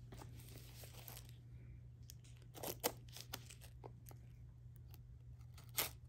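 Faint rustling of packaging being torn open and crinkled by hand, with a few sharp clicks about three seconds in and again near the end.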